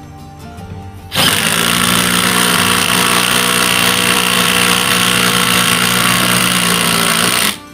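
Ridgid R87207 18V cordless impact wrench hammering under load as it drives a long screw into wood, starting about a second in and stopping abruptly near the end, with background music playing underneath.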